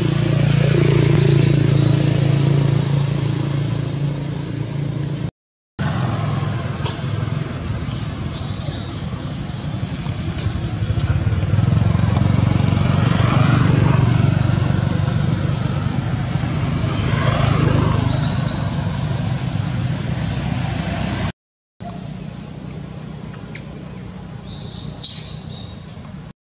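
Steady low rumble of motor traffic, with short high bird chirps repeating throughout. The sound cuts out briefly twice, and a brief high-pitched squeal comes near the end.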